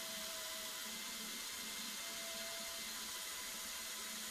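Cordless drill running steadily under load, drilling a hole into an aluminium rail block: an even motor whine over the hiss of the bit cutting metal.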